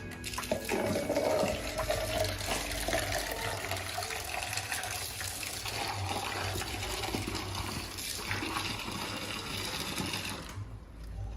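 Water pouring steadily from a one-litre jug into a bucket of soap mixture, stopping shortly before the end.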